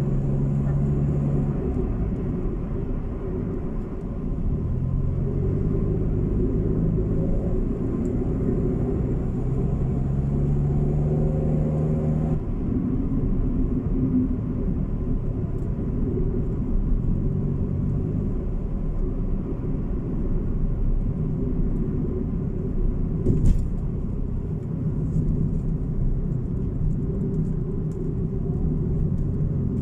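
Car driving: a steady engine hum and road rumble, with the engine note shifting in pitch a few times as the speed changes. A single brief click comes about two-thirds of the way through.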